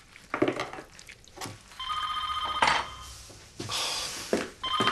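A telephone ringing with a trilling ring, once about two seconds in and again near the end, each ring about a second long. Short kitchen knocks and clatter fall between the rings.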